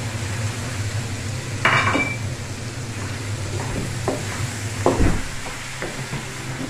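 Wooden spatula stirring and scraping squash chunks, tomato and onion in an aluminium wok, with light sizzling. A few knocks of the spatula against the pan stand out: the loudest about two seconds in rings briefly, and another, with a low thump, about five seconds in. A steady low hum runs underneath.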